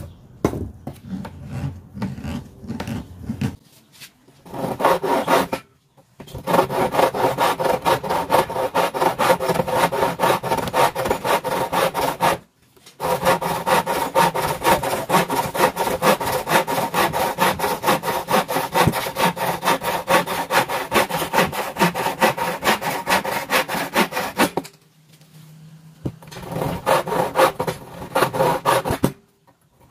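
Wooden frame saw cutting through a clamped board by hand in quick, even back-and-forth strokes, stopping briefly twice and once for longer near the end. Softer, uneven handling sounds come before the sawing starts.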